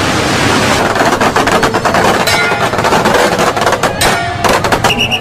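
A string of firecrackers going off in a long, rapid crackle of bangs over a steady noisy din, starting about a second in and dying away about four seconds in.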